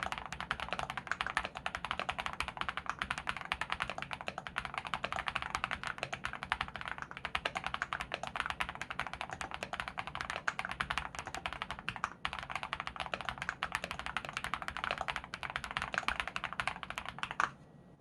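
Fast, forceful typing on an Akko SPR75 spring-mount mechanical keyboard with Sarokeys Strawberry Wine switches, PBT dye-sub keycaps, a polycarbonate plate, full foam and holee-modded, 205g0-lubed stabilizers: a dense, unbroken stream of keystroke clacks. It stops abruptly near the end after one louder hit.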